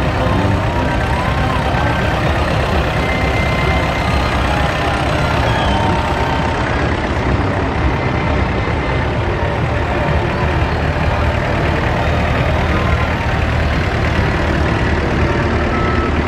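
Several vintage tractor engines running steadily as a column of tractors drives slowly past.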